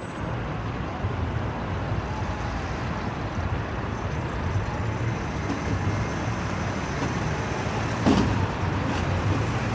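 Steady city road traffic: cars and buses passing as a continuous low hum of engines and tyres, with one brief louder sound about eight seconds in.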